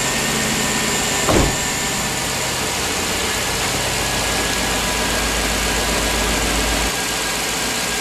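Newly installed Chevy 5.3-liter V8 idling steadily on its first run after an engine swap. A single brief thump sounds about a second and a half in.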